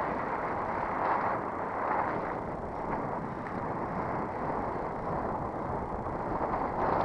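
Steady rush of wind and road noise while riding a bicycle along a paved road, heard through a bike- or helmet-mounted camera's microphone.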